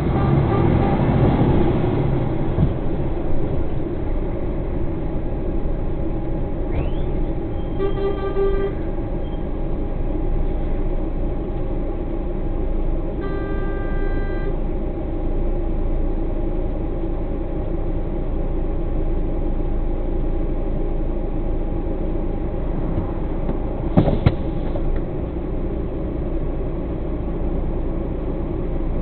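Truck's diesel engine running steadily at idle and crawling speed, a constant low rumble. A vehicle horn toots twice, briefly about a quarter of the way in and for about a second and a half near the middle, and a single sharp knock comes near the end.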